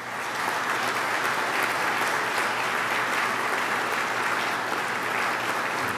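Audience applauding, many people clapping steadily.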